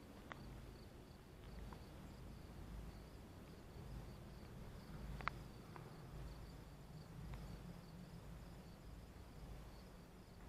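Crickets chirping faintly in a steady, evenly pulsing high trill over a low rumble. A few light clicks come through, the sharpest about five seconds in.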